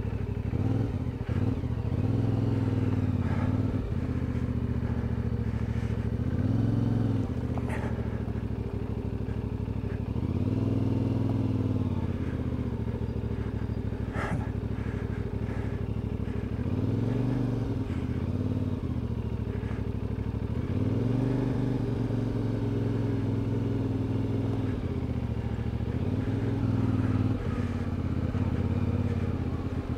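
CFMOTO 450MT's parallel-twin engine running at low speed, the revs rising and falling every few seconds through a series of tight turns. There are a couple of sharp clicks.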